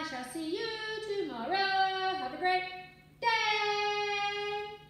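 A woman singing a short playful phrase, her voice sliding up and down between notes, then holding one long high note near the end.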